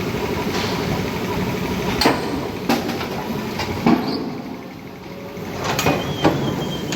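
100-ton friction screw press running in a brass forging shop: a steady machine hum with several sharp metallic clanks at irregular intervals.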